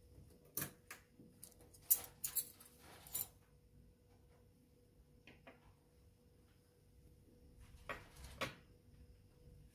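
Metal cutlery set down on a table: a few light clicks and clinks as a fork is laid down, then two more clicks about half a second apart near the end as a spoon is placed.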